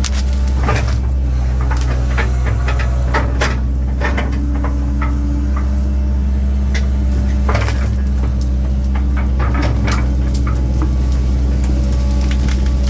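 Link-Belt 2700 excavator's diesel engine running steadily, with scattered sharp knocks and cracks over it.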